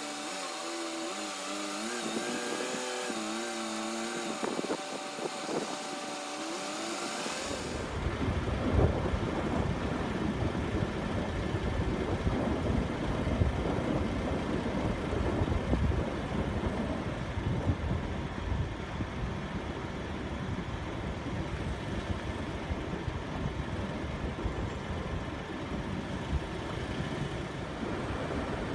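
Car driving along a country road: steady rumbling road and wind noise. Before it, for the first seven seconds or so, a few steady pitched tones step up and down like a tune, then stop suddenly as the driving noise comes in.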